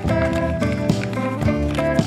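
Background music: a melody of changing notes over a regular beat, about one stroke a second.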